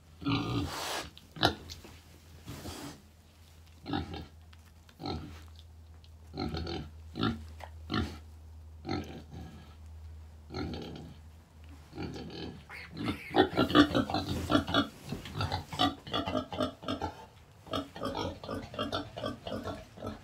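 Newborn piglets squealing and grunting in short separate bursts that come thick and fast in the second half.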